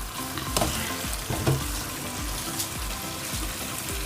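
Fried quail pieces sizzling in hot oil and spice paste in a pan while being stirred, with a few short knocks of the spoon against the pan.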